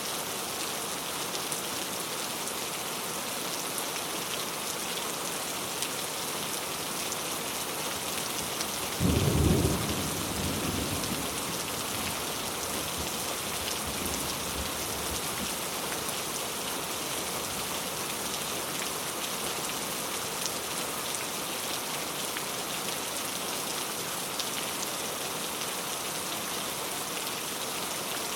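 Very heavy rain falling, a steady dense hiss. About nine seconds in, a sudden loud low rumble breaks over it and fades within a few seconds, with a fainter low swell a few seconds later.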